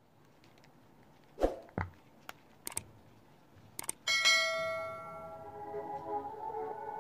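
A few sharp clicks from a feature phone's keys and audio plug being handled, then about four seconds in a bright bell-like tone rings out and music starts playing through the subwoofer driver, building toward the end.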